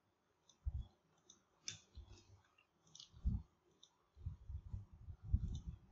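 Computer mouse clicking several times, soft and scattered, with low dull thuds between the clicks. The thuds are heaviest over the last couple of seconds.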